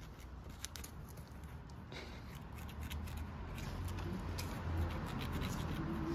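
Scattered light scratches and clicks as a tabby kitten's paws and claws bat at a twig scraped along a concrete ledge, over a low rumble that grows louder in the second half.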